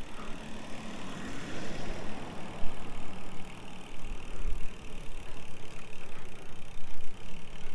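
A motor vehicle's engine running steadily close by, with a passing vehicle swelling and fading about one to three seconds in. Low wind rumble runs underneath.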